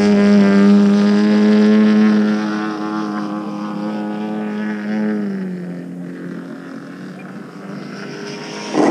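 Engine of a 108-inch 3DHS Extra 330LT giant-scale aerobatic RC plane running steadily in flight. About five seconds in its pitch drops and it grows quieter.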